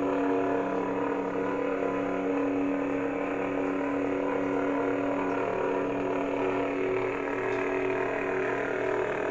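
Lightsaber sound board (a Nano Biscotte v3 in a Saber Forge Guardian) playing its blade-on idle hum through the hilt speaker: a steady electric hum made of several low tones, from the Qui-Gon Jinn sound font.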